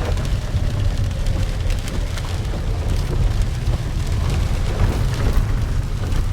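Loud, steady wind and road rumble inside a moving car with the window open, the air buffeting the microphone.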